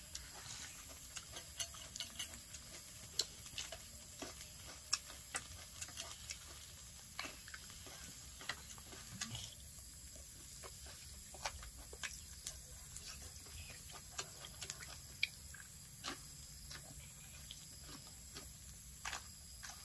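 People eating grilled chicken with their hands: faint, irregular small clicks and smacks of chewing and of spoons and plates being handled, over a steady high-pitched hiss.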